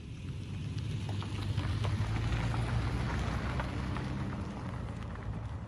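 SUV driving past on a gravel road: its tyres crunch and crackle over the gravel above a low engine hum, loudest about two to three seconds in, then fading as it moves away.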